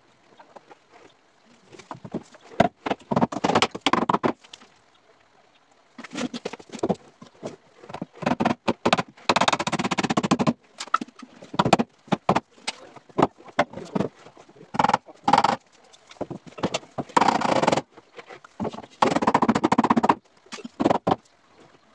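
Hammer blows on wood, knocking a glued wooden block up into place against a plywood cabinet. The blows come in runs of sharp knocks with short pauses, some runs fast and dense.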